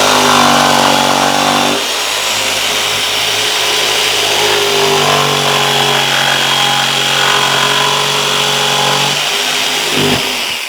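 Electric jigsaw cutting through wooden floorboard, running continuously with its motor pitch shifting as it works, then stopping near the end.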